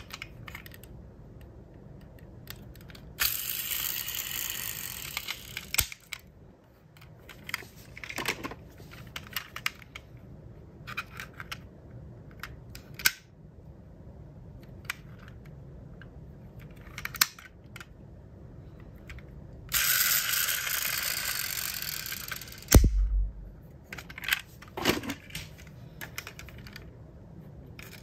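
Diecast model cars being handled: small clicks and clacks of metal-and-plastic bodies and of doors being opened. Two stretches of hissing noise, each about three seconds, come in the first quarter and past the middle, and a single dull thump just before the end is the loudest sound.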